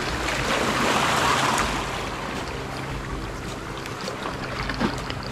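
Sea water washing and wind on the microphone, with a swell of wave noise in the first two seconds that then settles, over a steady low hum.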